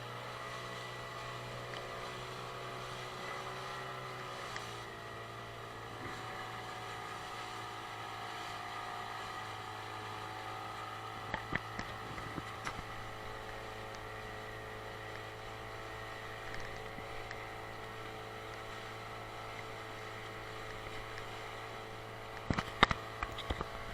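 Boat motor running steadily, its tone shifting slightly a few seconds in, with a few knocks near the end.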